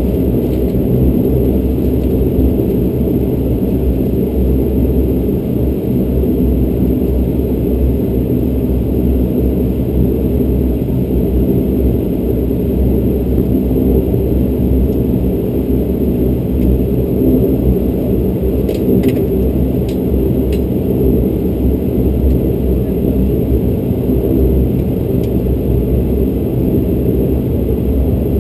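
Bombardier Dash 8 Q400's Pratt & Whitney PW150A turboprop engines and propellers droning steadily at taxi power, heard from inside the cabin. A few faint clicks come about two-thirds of the way through.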